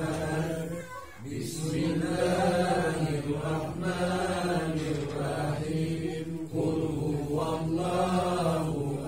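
Men chanting an Islamic tahlil recitation together in a slow, steady melodic drone, with a brief pause for breath about a second in.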